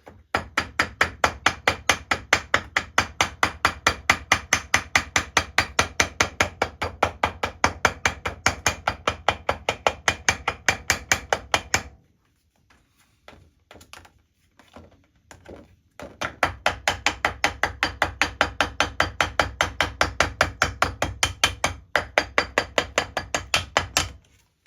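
Rapid, even hammer taps, about four to five a second with a slight ring, on gasket paper laid over a metal valve chest cover, cutting out a paper gasket. The flat face of a ball-pein hammer is used. The taps run for about twelve seconds, break off into a few scattered taps, then resume for another eight seconds.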